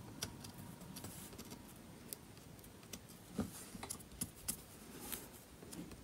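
Faint, irregular clicks and small taps as fingers and a small pointed tool handle parts inside an opened Sony Xperia tablet.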